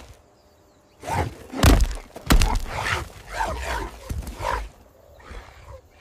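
Fight between a spotted hyena and a man wielding a bone club: two heavy thuds about half a second apart, surrounded by snarling and grunting. The first second is quiet.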